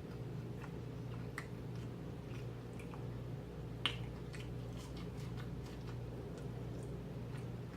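Close-up chewing of sausage dog and fries: wet mouth clicks and smacking, with one louder smack a little under four seconds in, over a steady low hum.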